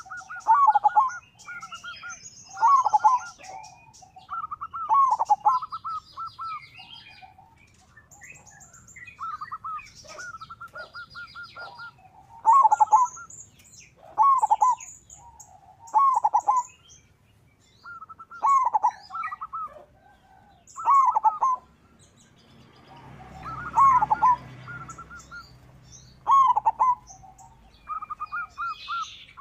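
Zebra dove (local perkutut) singing: a short staccato, trilled cooing phrase repeated about every two seconds. High, thin chirps of smaller birds sound around it, and a brief hiss of noise comes about four-fifths of the way through.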